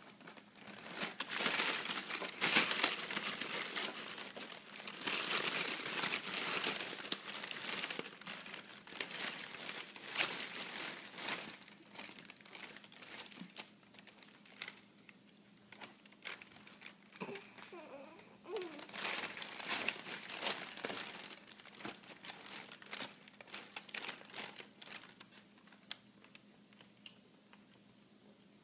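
A large plastic bag of tortilla chips crinkling and crackling as a baby's hand grabs and paws at it. The crinkling comes in uneven bursts: heavy for the first dozen seconds, sparse for a while, busy again around twenty seconds in, then dying away toward the end.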